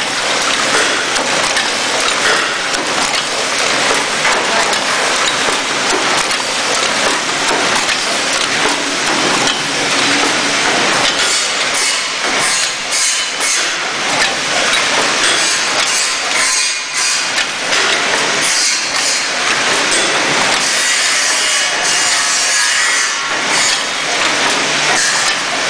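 Paper cup forming machine running: a steady, dense mechanical clatter from its forming stations, with sharper clicks and knocks standing out in the second half.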